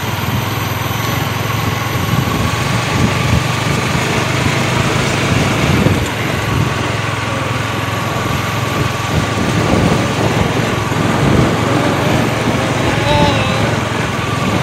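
Motorcycle engine running at a steady pace while riding along a dirt track, with wind noise rushing over the microphone.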